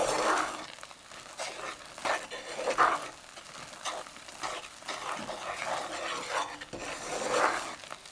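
Wooden spoon stirring and scraping a hot butter, sugar and milk caramel mixture around a frying pan, in repeated irregular sweeps about once a second, with a light sizzle underneath.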